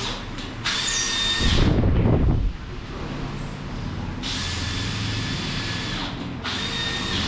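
Power drill running in three short bursts of steady high whine, the second the longest, with a louder low clatter about two seconds in.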